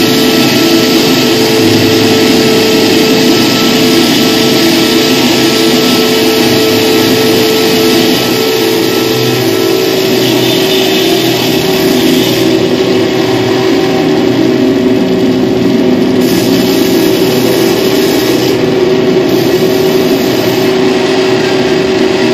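Live noise and drone music: a loud, dense wash of noise over a steady droning tone that drops slightly in pitch about eight seconds in.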